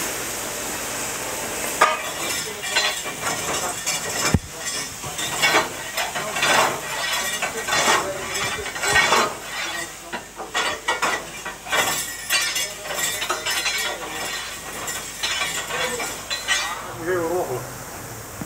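Irregular scraping, clinking and crackling around a steam locomotive's coal fire, over a steady hiss.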